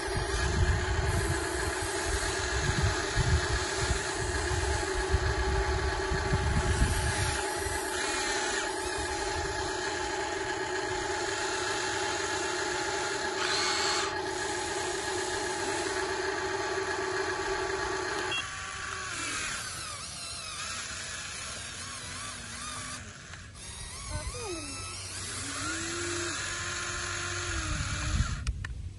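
Small electric motors and gearboxes of an RC toy excavator and dump truck running: a steady whine that cuts off about two-thirds of the way through, with low thumping over the first few seconds. After it stops come shorter whines that rise and fall in pitch as motors start and stop.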